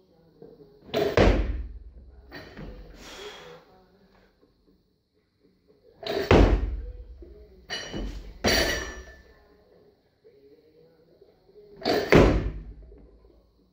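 67 kg barbell with bumper plates being snatched and set down: heavy thuds of the plates and the lifter's feet hitting the platform about one second in, around six seconds, twice near eight seconds, and again about twelve seconds in, each with a short metallic rattle of the bar and plates.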